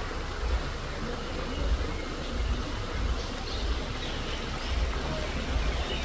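Low, uneven rumble of wind buffeting a phone microphone outdoors, over a steady hiss of woodland ambience, with a few faint short high chirps in the second half.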